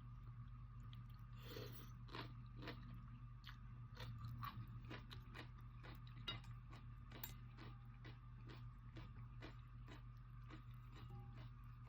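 A person chewing Cambodian noodles, with faint wet mouth clicks in a steady rhythm of about two a second, over a low steady hum.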